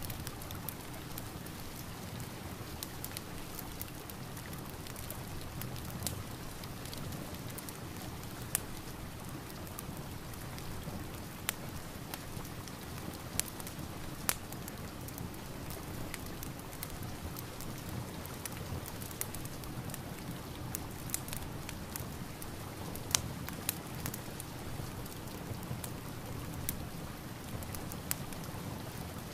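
Steady rain mixed with a crackling fireplace: an even hiss with scattered sharp, irregular pops.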